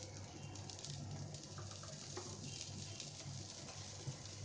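Faint soft handling sounds as stuffed potato halves are set down on parchment paper on an electric tandoor plate, over a low steady hum, with a small tap about four seconds in.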